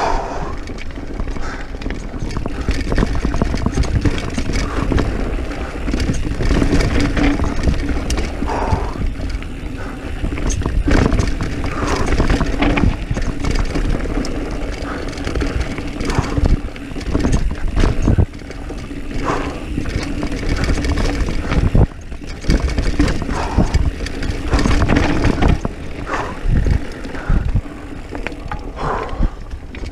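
Diamondback Mission 1 mountain bike riding fast downhill on a dirt trail: tyres rumbling over the ground and the bike rattling and knocking over bumps, with wind buffeting the microphone.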